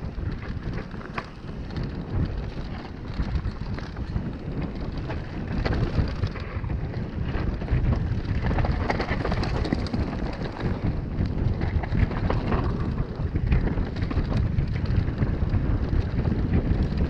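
Wind buffeting the camera microphone over the rumble and crackle of mountain bike tyres on a dirt singletrack at speed, with small clicks and rattles from the bike throughout.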